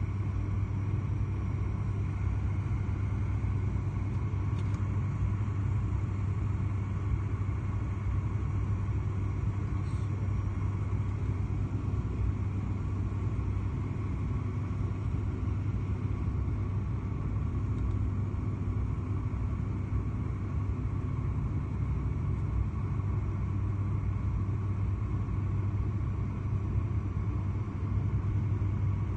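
Airliner cabin noise on final approach: the steady drone of the engines and rushing air, with a deep low rumble and a faint steady hum above it.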